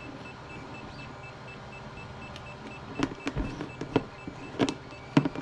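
Sharp clicks and taps of small plastic connectors and wires being handled and plugged together, several in the second half, over a steady electrical hum with a faint, rapidly pulsing high tone.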